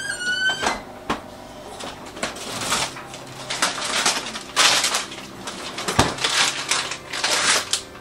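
Rustling and crinkling of plastic packaging as kitchen items are handled, in repeated bursts, with one sharp knock about six seconds in. A short rising chirp sounds right at the start.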